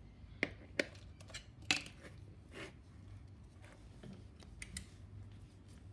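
Small objects being handled: a few sharp clicks and light taps, the loudest about half a second, just under a second and about 1.7 s in, with fainter taps later.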